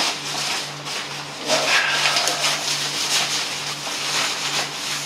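Fabric and straps of a Tasmanian Tiger Field Pack rustling and scraping as its top closures are undone and the main compartment is pulled open, in uneven bursts.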